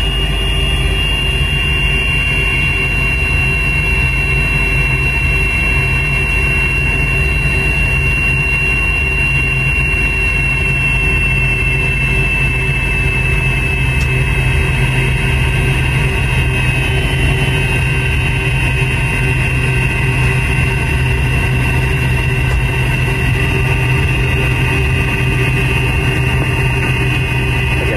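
Cabin sound of a McDonnell Douglas MD-88 taxiing, its rear-mounted Pratt & Whitney JT8D turbofans running at low taxi power. A steady rumble, with a high whine that sinks slightly in pitch over the first half.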